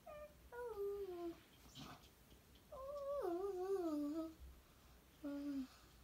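Young child's wordless sing-song vocalizing: four drawn-out calls, the longest about three seconds in, falling and wavering in pitch.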